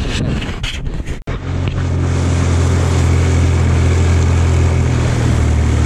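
Boat outboard motor running steadily from about a second and a half in, a low even hum with a hiss of wind and water over it. A few sharp knocks come just before it.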